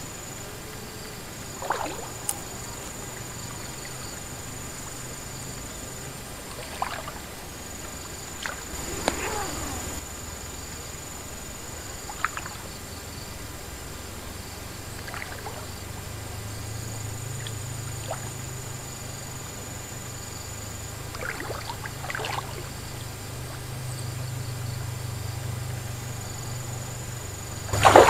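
A hooked fish splashing at the surface now and then as it is played on a long rod, ending in one loud splash. Behind it, insects keep up a steady high drone that breaks off and resumes.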